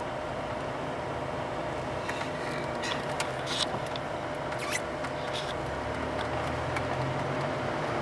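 Road noise inside a moving car: a steady tyre and engine drone with a few scattered light clicks. The low engine drone grows louder from about six seconds in.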